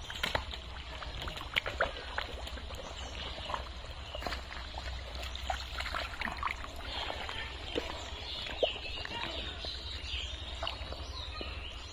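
Hands squelching and slapping through thick wet mud and shallow water, with many short sharp splats and a trickle of water.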